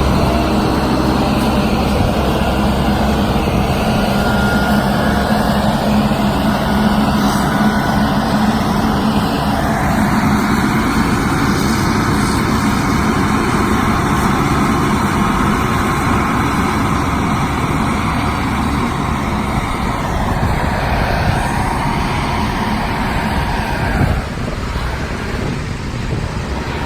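Self-loading concrete mixer's engine running steadily under load. Near the end there is a single knock, after which it runs a little quieter.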